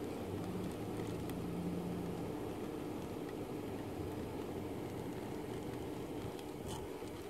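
Gemmy airblown inflatable's built-in blower fan running with a steady hum while it inflates the decoration.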